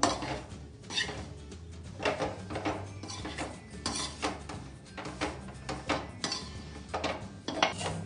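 Metal spatula scraping and knocking against the sides and bottom of an aluminium kadhai as roasting wheat flour is stirred, in a quick, irregular run of scrapes and clinks.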